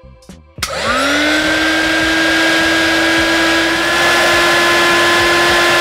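Handheld heat gun switched on with a click about half a second in. Its fan motor quickly spins up to a steady whine over a loud rush of hot air, shrinking heat-shrink tubing over soldered wires. At the very end it is switched off and the whine starts to fall in pitch.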